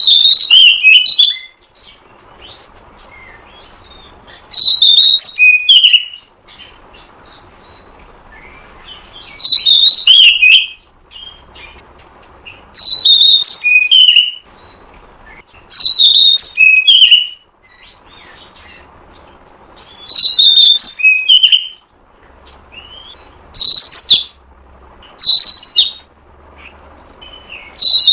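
Oriental magpie-robin (kacer) singing short, loud phrases of sliding whistled notes, repeated about every three to four seconds with a faint steady hiss between phrases.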